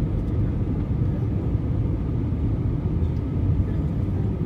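Cabin noise inside an Airbus A320 in flight: a steady low rumble of engines and airflow heard from a window seat over the wing.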